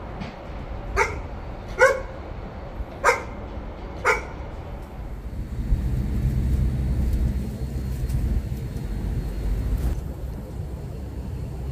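A dog barking four times, about a second apart, then a steady low rumble of outdoor background noise.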